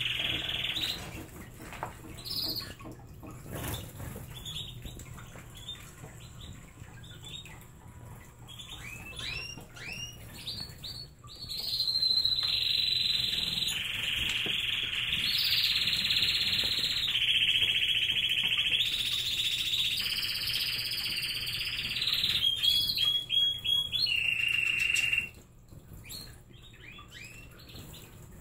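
Domestic canary singing: scattered chirps and quick rising notes, then long, rapid high trills held for much of the second half, breaking off sharply near the end.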